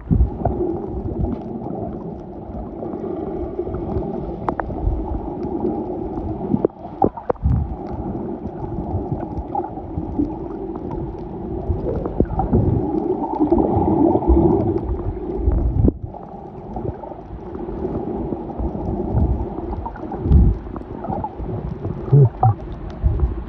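Underwater sound heard through a submerged camera: muffled, low churning water noise with bubbling and scattered sharp clicks and knocks.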